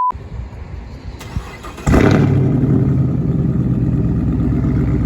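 Chevrolet Camaro SS 6.2-litre V8 starting about two seconds in, flaring loudly as it catches and then settling into a steady, raspy idle. The exhaust runs through a newly fitted 3-inch H-pipe mid-pipe with the secondary cats deleted and the exhaust valves held open.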